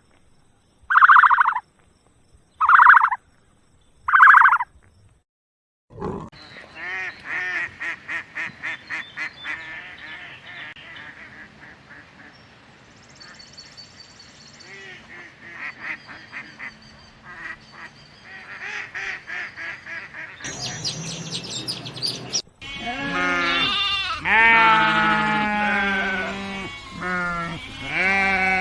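A run of farm-animal calls, one after another: a turkey gobbling in short, evenly spaced calls, then poultry calling in quick strings of pulses, then bleating livestock calls that bend down in pitch.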